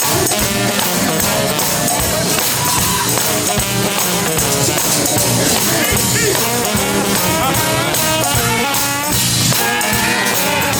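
Live brass band of trumpets and trombones playing an up-tempo tune over steady percussion, with horn lines sliding between notes.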